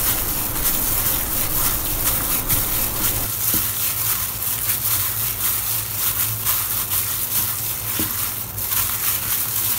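Wet squishing and crackling of minced pork and chopped vegetables being kneaded by a plastic-gloved hand in a stainless steel bowl, with a steady low hum underneath.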